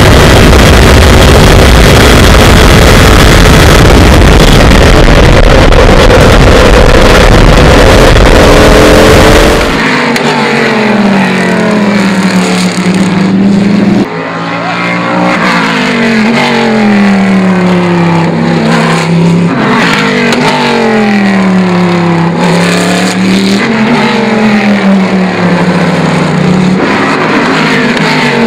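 Formula Le Mans prototype's V8 at racing speed, first heard from inside the cockpit as a loud, dense engine and wind noise. About ten seconds in it switches to the engine heard from outside, its note rising and falling over and over as the car passes, brakes and accelerates.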